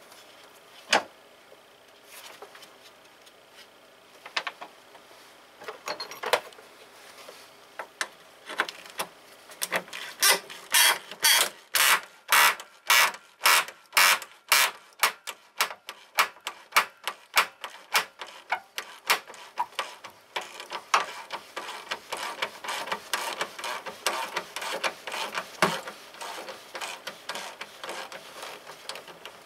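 A run of sharp clicks. They are scattered at first, then come evenly about twice a second for several seconds, then turn quicker and fainter toward the end.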